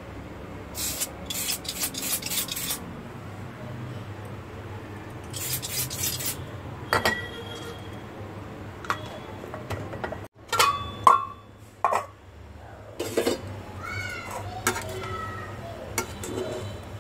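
Aerosol air-freshener can sprayed in two hissing bursts, the first about two seconds long and the second about one second. A few sharp clinks and knocks follow.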